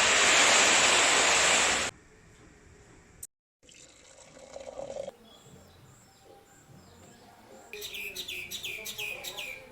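A loud rushing noise for about two seconds, then near the end a bird calling in a quick series of short chirps, each falling in pitch.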